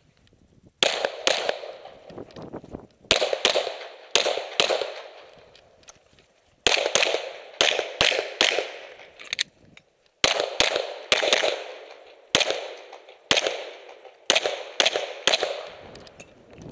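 Semi-automatic pistol fired in rapid pairs of shots, about two dozen in all, with gaps of a second or so between pairs; each shot is sharp and fades off in a short echo.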